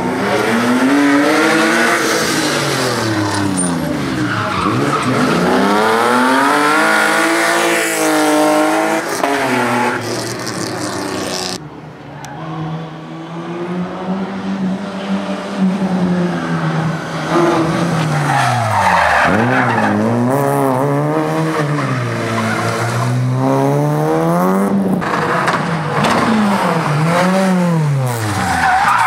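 Slalom car's engine revving hard, its pitch climbing and dropping again and again as the driver accelerates and lifts between cones, with tyres squealing and skidding on the tarmac. About twelve seconds in the high hiss cuts off abruptly and the sound steadies briefly before the revving rises and falls again.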